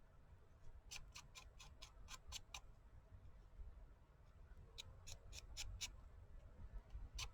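Near silence with faint, sharp clicks or taps in short quick runs, about four a second: one run about a second in, another around five seconds in, and a single click near the end.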